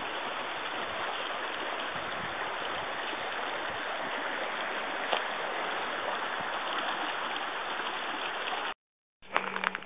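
Steady rushing of a small rocky stream. It cuts off abruptly about a second before the end, and after a brief gap a few sharp clicks follow.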